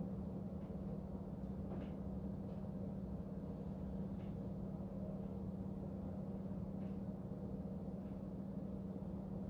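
Room tone: a steady low hum under a faint even hiss, with a few soft, faint ticks.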